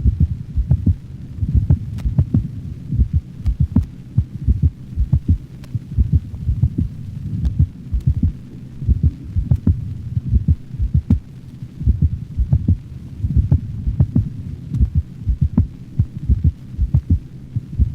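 Dog's heart heard through a stethoscope: two normal beats followed by a premature ventricular contraction, repeating, which gives an irregular lub-dup rhythm. The beats come as clusters of dull low thumps with short pauses between them, over a low steady hum.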